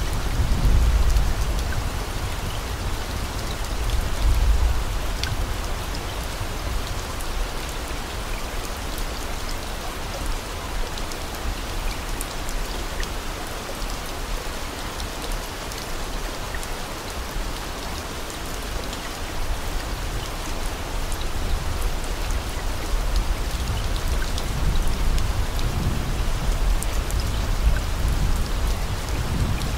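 Steady rain falling, a dense even patter, with low rumbles swelling near the start and again near the end.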